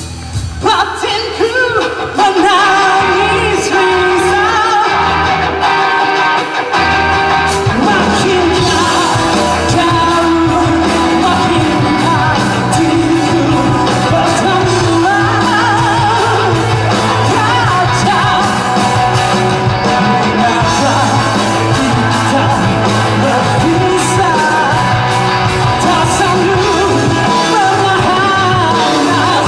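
Live indie rock band playing with a sung, partly shouted lead vocal, heard through a hall's sound system. The music is quieter for about the first two seconds, then the full band comes in loud.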